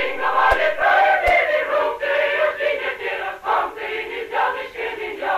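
A choir of many voices singing together. The sound is thin, with no bass, and carries a couple of faint clicks about half a second and just over a second in.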